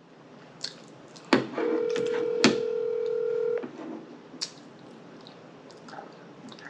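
Smartphone on speaker ringing out on an outgoing call: one steady ringback tone about two seconds long, starting about a second and a half in. Two sharp clicks, the loudest sounds, come just before and during the tone, with a few fainter clicks afterwards.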